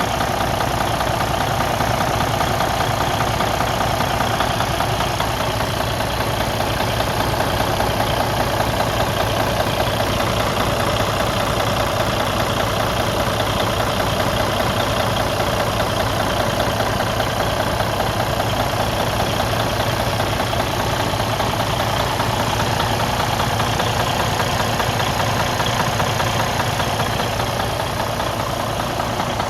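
Detroit DD15 inline-six diesel engine idling steadily with a rapid, regular knocking, the sign of an internal engine problem.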